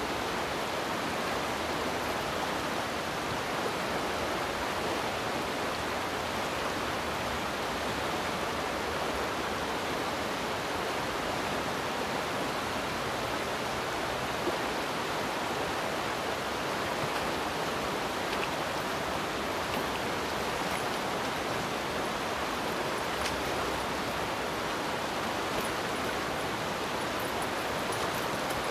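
Fast, shallow river running over rocks and riffles: a steady, even rush of water.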